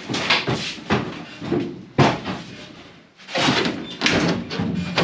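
Sheet-steel trunk floor pan being forced into a car body: a run of metal bangs, knocks and scrapes, with a sharp knock about two seconds in and a longer scrape in the last couple of seconds. The panel is jammed, catching on the body as it is worked into place.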